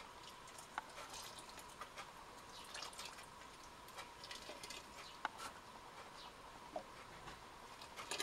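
Frothy yeast starter poured slowly from a plastic jug into a plastic barrel of jam mash: faint trickling and dripping liquid with scattered small splashes and clicks.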